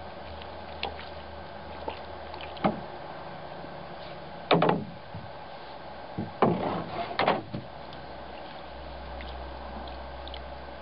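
Knocks and clatter against the wooden hull of a cedar strip canoe as it is handled and loaded in shallow water: a few light taps, then a louder bump about four and a half seconds in and a cluster of knocks a couple of seconds later.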